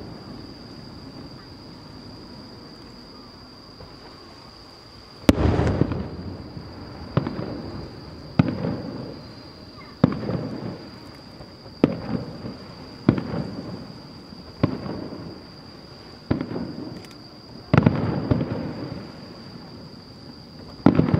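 Aerial firework shells bursting at a distance. After about five seconds of quiet, about ten sharp bangs come one every second or two, each trailing off in a rumbling echo.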